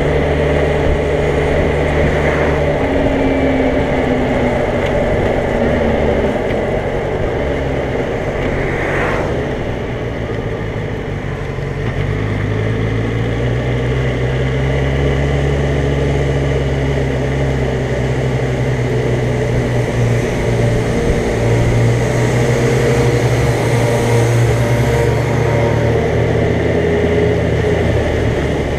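Motorcycle engine running under way, heard from the rider's seat over road noise. The engine note drops and eases off about ten seconds in as the bike slows, then picks up again and holds steady.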